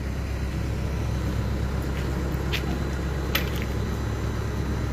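Engine idling, a steady low rumble, with a few light clicks about two to three and a half seconds in.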